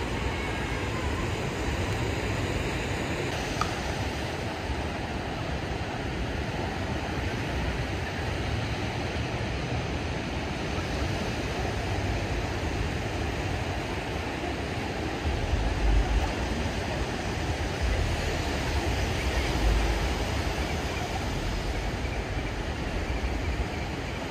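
Ocean surf washing onto a sandy beach, a steady rushing noise, with gusts of wind buffeting the microphone about two-thirds of the way through.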